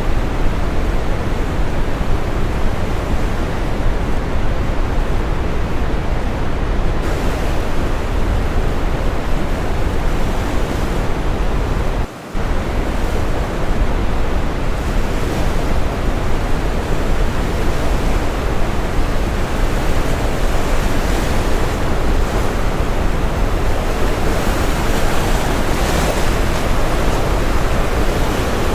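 Brown noise, a steady deep hiss, mixed with ocean waves washing in and swelling now and then. The sound dips briefly about twelve seconds in.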